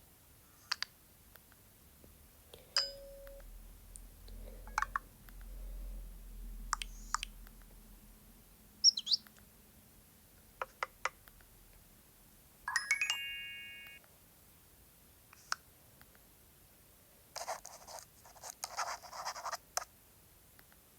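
Nokia 113 mobile phone being operated: scattered keypad clicks with short electronic beeps and chirps, and a brief chime of several steady notes at once about two-thirds of the way through. Near the end comes a stretch of rapid clattering noise.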